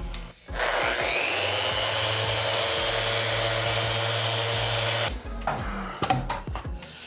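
Random orbital sander spinning up about half a second in and running steadily while buffing an oil-wax finish (Osmo Polyx Oil) on a board, then switched off about five seconds in and winding down.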